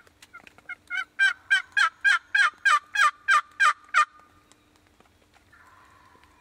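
Turkey yelping: a series of about fifteen evenly spaced yelps, about three and a half a second, each dropping in pitch. The yelps build from faint to loud over the first second and stop about four seconds in.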